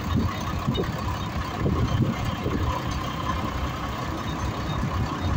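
Crane truck's engine running steadily, a low even sound.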